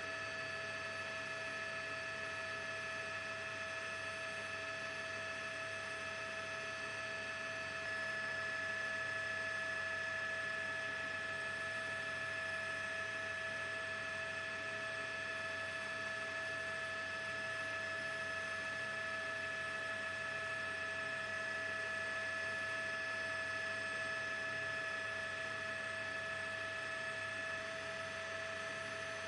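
A steady electronic hum of several held tones, unchanging in pitch, a little louder from about eight seconds in until near the end. No explosion, collapse or speech is heard.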